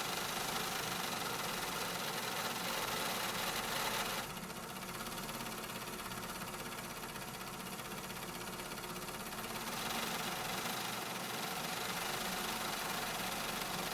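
Factory ambience: machinery running steadily, a dense mechanical noise. About four seconds in its hissy upper part drops back, and it returns at full strength near ten seconds in.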